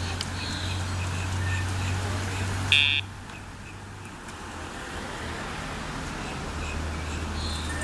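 Dogtra e-collar's sound box giving one short, loud electronic buzz: the pager cue that goes with the command for the dog to lie down. A steady traffic rumble runs underneath.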